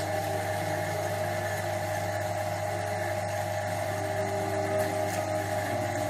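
Laboratory vacuum pump running steadily with a low hum, drawing suction through a Büchner funnel and flask during vacuum filtration.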